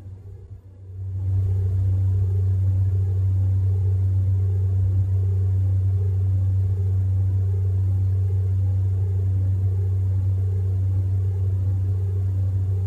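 A steady low drone that swells in about a second in and then holds level, with a fainter wavering layer above it.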